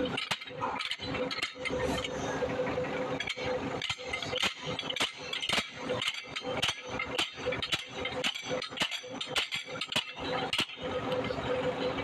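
Metal clicking and clinking, about two or three sharp clicks a second, as a wrench is worked back and forth on the threaded rod of a press on a hydraulic breaker's cylinder. A steady hum runs underneath.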